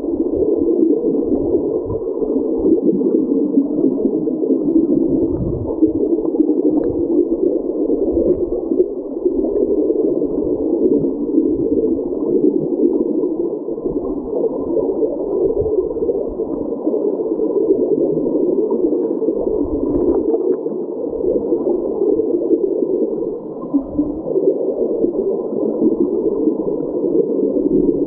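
Creek current heard underwater: a steady, muffled rushing of flowing water with irregular low thumps.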